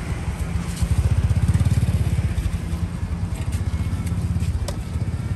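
Small engine running with a steady, fast low chugging pulse, with a sharp click near the end.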